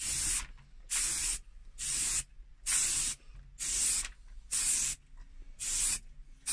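Aerosol spray can of plastic primer spraying in short stop-start bursts, about one a second, seven in all, laying down the first primer coat.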